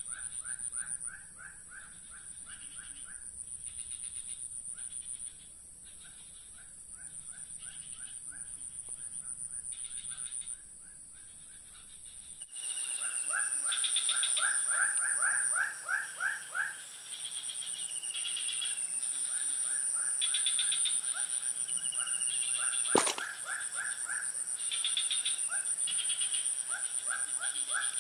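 Wildlife chorus of calling animals: a high, steady, insect-like drone with brief gaps, over repeated rapid trains of chirping calls in bursts of a second or two. It turns louder and fuller about twelve seconds in, and one sharp click sounds near the end.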